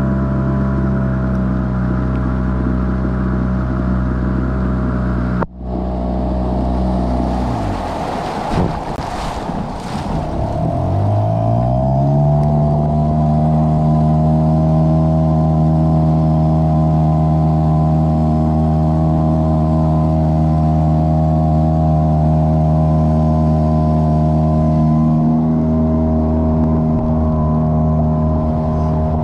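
Yamaha 5 outboard motor running steadily at high throttle. About seven seconds in, its note sags and drops in pitch under a burst of rushing wind and water noise. It then climbs back within a second or so to a steady, slightly higher note.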